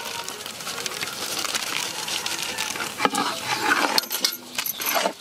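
Guava halwa cooking in ghee in a pan: a steady sizzle with many small clinks, and a sharper click about three seconds in.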